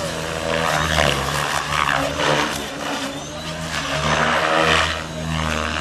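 Electric Compass 6HV model helicopter's rotors and motor running under hard 3D aerobatics: a steady drone whose whoosh swells and fades about once a second as the collective pitch is slammed back and forth.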